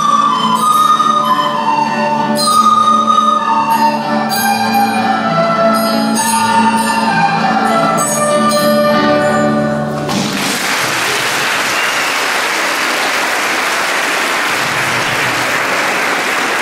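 School recorder orchestra with guitars playing a melody over a held low note, the piece ending about ten seconds in. Audience applause follows.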